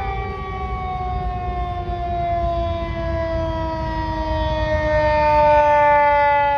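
Federal Signal 2001 rotating outdoor warning siren sounding its attack wail. Its stack of tones slides slowly down in pitch and swells louder about five seconds in as the rotating head sweeps around.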